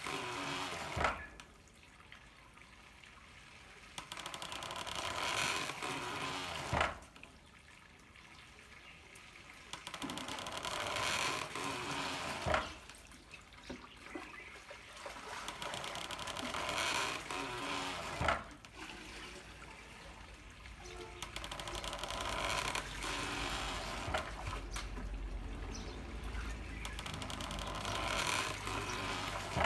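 Handmade water-powered corn mill working: water running through a bamboo pipe swells over a few seconds, then the mill gives a sharp knock. The cycle repeats about every six seconds, a steady beat.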